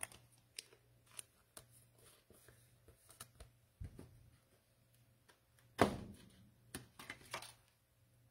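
Trading cards and packs being handled on a table: a string of light clicks and taps, with a louder thump about six seconds in and a few more clicks just after.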